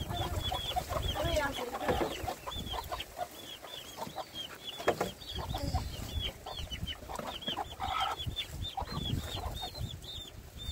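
Chickens clucking, with a rapid run of short, high cheeps over them.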